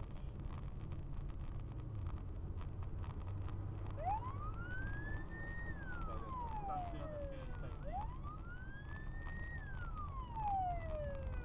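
Emergency vehicle siren wailing: about four seconds in, the pitch rises, holds high briefly, then slides down, each cycle taking about four seconds. Two full cycles sound, and a third rise begins at the very end, over a steady low rumble of a car driving.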